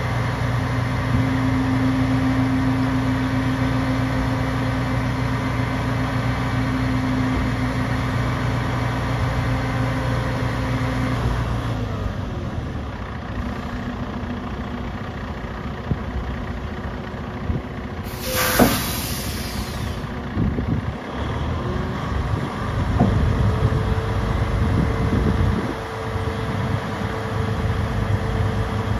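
Freightliner SD122 dump truck engine running steadily at raised speed while the dump bed tips up, then dropping to a lower idle about eleven seconds in. About eighteen seconds in comes a short burst of air hiss. In the last part a steady whine runs with the engine as the bed comes back down.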